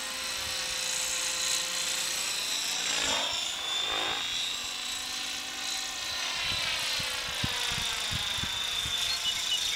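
Gaui Hurricane 550 electric RC helicopter flying at speed, its motor, gears and rotor blades giving a steady high whine, with the sound sweeping as it passes close about three to four seconds in.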